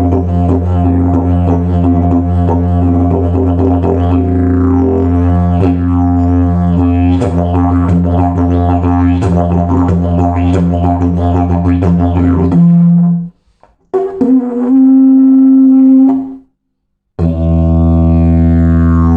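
A slide didgeridoo plays a continuous drone with rhythmic overtone patterns. About 13 seconds in the drone breaks off for two loud, higher held notes and a short silence, then resumes with sweeping overtones.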